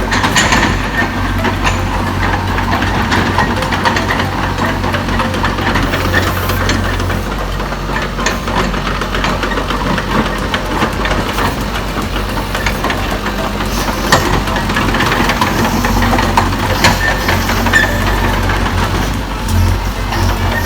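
Heavy-equipment diesel engine running steadily, with a dense mechanical clatter over a low hum.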